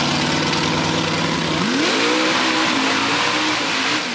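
Lifted mud-bog pickup truck's engine held at steady revs, then revving up sharply about one and a half seconds in and surging up and down as the truck drives into the mud pit, its tyres churning mud.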